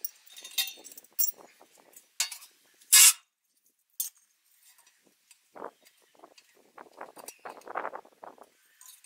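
An emptied steel LPG cylinder and its cut-out steel panel being handled: a string of sharp metallic clinks and clanks in the first half, the loudest one about three seconds in, then softer rubbing and scraping as the cylinder is tipped and shifted.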